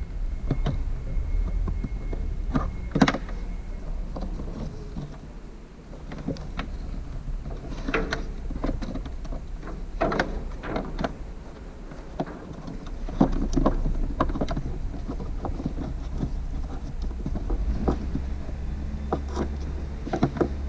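Irregular plastic clicks and knocks from hands working a truck tail light housing and its wiring socket while a bulb socket is fitted and locked in, over a steady low rumble.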